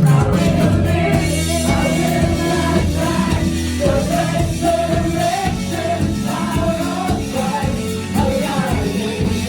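Live worship band playing with singers, a praise song with held chords and voices.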